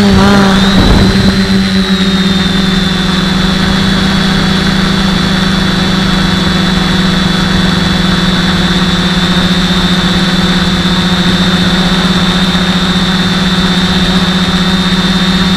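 Quadcopter's electric motors and propellers whirring, heard from its onboard camera. The pitch wavers in the first second or so as the craft levels out, then holds a steady hovering whine.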